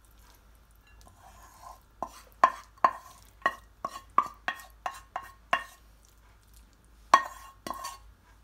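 Wooden spatula scraping, then knocking against a pan and a ceramic plate as spaghetti is pushed out onto the plate. A quick run of about a dozen sharp knocks with a brief ring, roughly three a second, then two more near the end.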